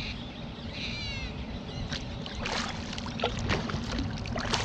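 A brief high-pitched whine about a second in, followed by kayak paddle strokes with water splashing and dripping off the paddle blades.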